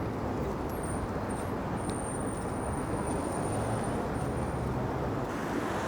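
Street traffic noise: a steady rush of passing vehicles, with a faint high-pitched whine running through the middle few seconds.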